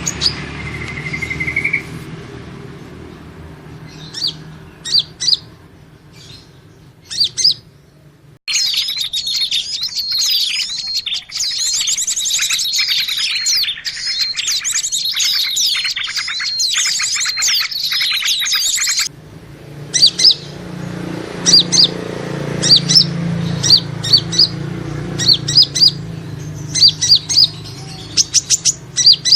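Small songbirds chirping, played as a lure call for small birds. Scattered sharp chirps give way about eight seconds in to dense, continuous twittering. This stops abruptly near 19 seconds, and rapid repeated chirps follow over a low background hum.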